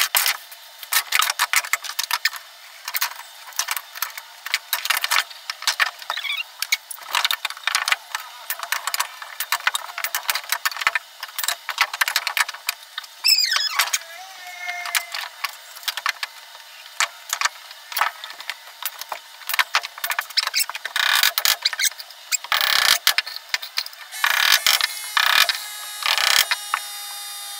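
Carpentry on wooden boards: a fast, irregular run of sharp knocks and clacks from nails being driven with a nail gun and planks being struck and handled. A brief falling squeal comes about halfway through. The whole sounds thin, with no low end.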